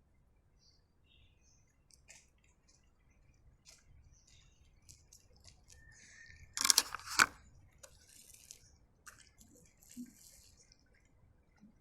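A cat eating: faint, scattered wet clicks and chewing sounds, with two louder sharp noises close together about six and a half seconds in.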